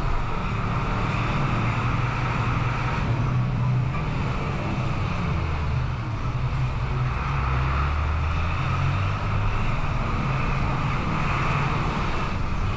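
Bus engine running and road noise, heard from inside the moving bus. The low engine hum drifts up and down in pitch as the bus slows and pulls on through town traffic.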